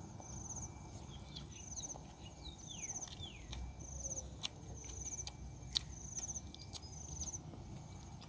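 An insect chirps steadily outdoors in short pulsed bursts about once a second. A few quick falling bird calls come in the middle, and two sharp clicks stand out over soft handling noise as cooked frog is torn apart by hand.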